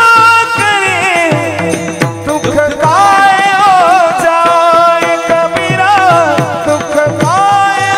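Warkari bhajan: male voices sing long, drawn-out, wavering notes without clear words, while several pairs of brass hand cymbals (taal) clash in a steady rhythm.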